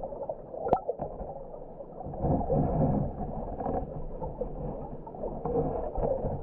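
Muffled rush and gurgle of creek water heard through an underwater camera's housing, swelling louder for a moment about two seconds in. There is a single sharp click just under a second in.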